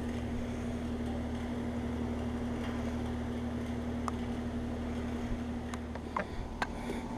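Outdoor condensing unit of a 2024 Carrier Comfort 16 central air conditioner running steadily just after startup: a constant scroll compressor hum under the rush of the condenser fan, with a few sharp ticks near the end.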